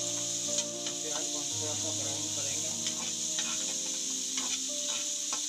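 Chopped onions sizzling in hot oil in a steel pan, with scattered short clicks of a spatula stirring against the metal.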